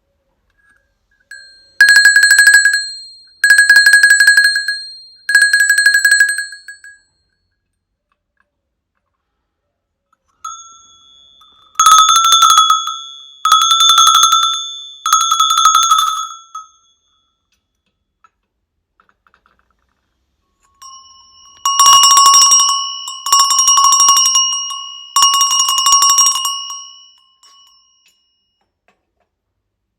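Three handmade long, bulged cowbells of successive sizes, each shaken three times in a row so that it clangs and rings. There is a pause between bells, and each bell sounds lower than the one before as the sizes grow.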